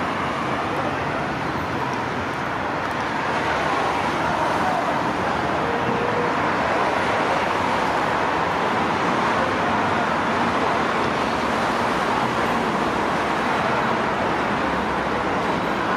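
Steady outdoor din like distant road traffic, an even wash of noise with faint voices now and then.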